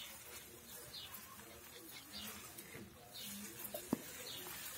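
Faint outdoor bird calls, short chirps repeating about once a second, with a single sharp click about four seconds in.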